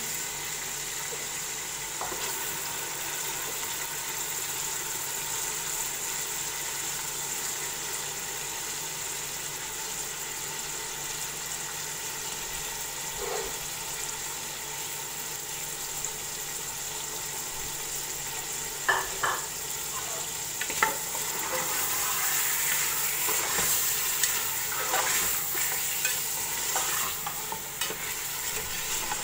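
Mutton pieces sizzling in hot oil and garlic-ginger paste in an aluminium pressure cooker as they start to fry. About two-thirds of the way in, a spatula begins knocking and scraping against the pot as the meat is stirred, and the sizzle grows louder.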